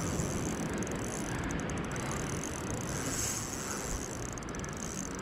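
Spinning reel being wound steadily while playing a hooked fish, under a constant wash of wind and sea-water noise.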